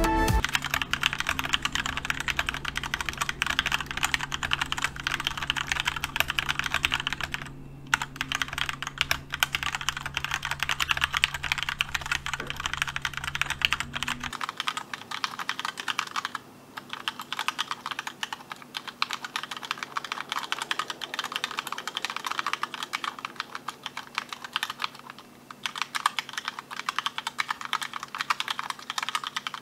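Continuous fast typing on a Keychron K2 75% mechanical keyboard with Gateron Red linear switches: a dense run of key clacks, broken by three brief pauses.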